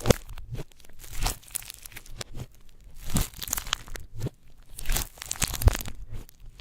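Slime being worked and mixed with crushed eyeshadow, makeup pieces and glitter, in irregular bursts of noisy handling sounds that rise and fall in loudness.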